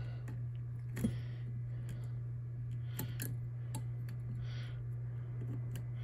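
Scattered light clicks and taps from handling a sump pump and tools on a workbench, a few sharp ticks spread over several seconds, over a steady low hum.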